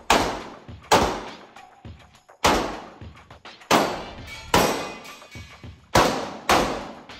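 Seven pistol shots, fired as singles and quick pairs, each ringing on with a long echo in an indoor range.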